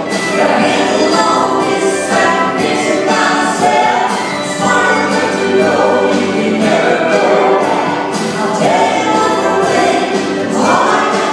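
Live band playing a song on stage, with a male lead singer at the keyboard and women's backing vocals blending in like a choir over guitars, keys and drums, heard from the audience through a phone microphone.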